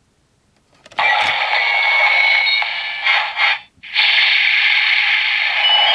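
A few quick clicks, then the DX Mirai Driver toy belt's small speaker playing its electronic sound effects and audio, thin and tinny. There is a short break just before four seconds in, then the sound goes on again.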